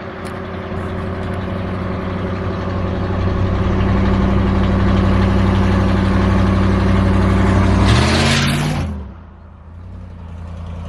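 A motor vehicle's engine running steadily, slowly growing louder. About eight seconds in it briefly rises and then falls in pitch, and it fades out about a second later.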